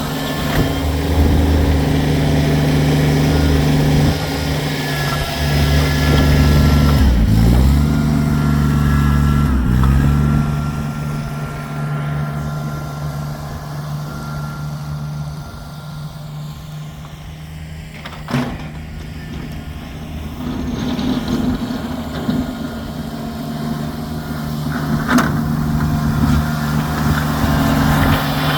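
Kubota tractor's diesel engine running steadily while snow plowing. Its pitch sags briefly twice, about seven and ten seconds in, and it runs quieter for a stretch in the middle. Two sharp clicks or knocks come later.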